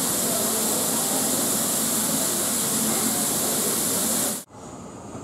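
Steam hissing steadily from a standing LMS Stanier Class 5 4-6-0 steam locomotive, loud and high-pitched; it cuts off abruptly about four and a half seconds in, leaving a much quieter background.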